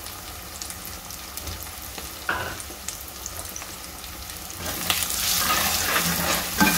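Beaten eggs, onions and green chillies sizzling in oil in an aluminium pot, with a single knock about a third in. About two-thirds in a steel spoon starts stirring, scraping around the pot, and the sizzling gets louder.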